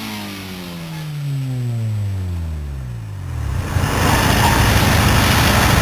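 Honda Civic's VTEC four-cylinder engine let off the throttle from high revs near redline, its note falling steadily for about three and a half seconds as the revs drop. About four seconds in, a louder steady rough rumble takes over.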